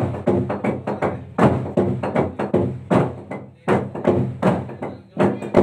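Log drum, a hollowed tree trunk, beaten by a team of players with wooden beaters: a fast, uneven run of hollow wooden strikes, several a second, each ringing briefly.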